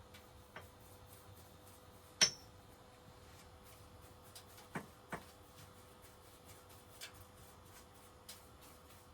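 Scattered light taps and knocks of small objects being handled, with one sharp clink that rings briefly about two seconds in and two knocks close together about halfway through, over a faint steady hum.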